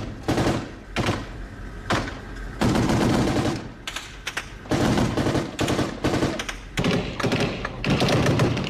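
Repeated bursts of machine-gun fire, some lasting over a second, with short pauses between, heard from inside an armoured vehicle.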